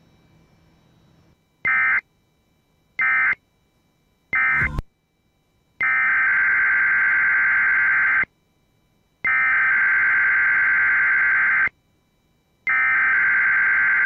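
EAS SAME digital data bursts: a harsh, buzzy warble of two rapidly alternating tones. First come three short end-of-message bursts closing the previous test. Then come three longer header bursts, each about two and a half seconds and about a second apart, that open a NOAA Weather Radio required weekly test.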